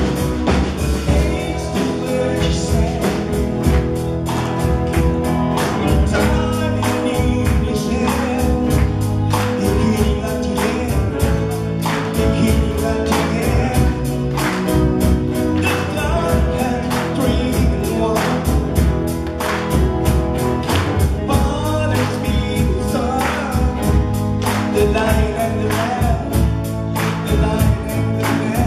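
Live worship band playing a praise song: electric guitar, bass guitar, drum kit and keyboard, with voices singing through microphones. The drums keep a steady beat.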